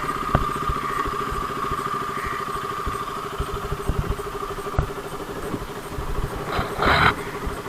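KTM motorcycle engine idling steadily at a standstill, with a short, louder burst of noise near the end.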